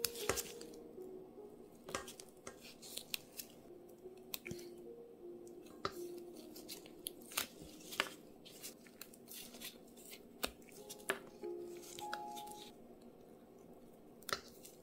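A knife cutting and prying the hard outer shells off raw chestnuts: scattered crisp clicks and scrapes, over soft background music.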